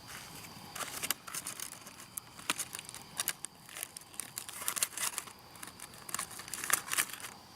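Doubled aluminum foil pouch being unfolded and pulled open, crinkling irregularly with many sharp crackles.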